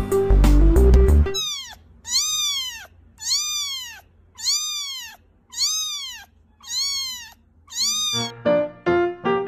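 A very young kitten mewing over and over: about eight thin, high calls roughly a second apart, each rising and then falling in pitch. Background music plays briefly at the start and comes back near the end.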